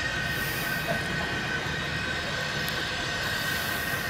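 Train on the adjacent track: a steady rumble and noise with a high, even squealing tone over it.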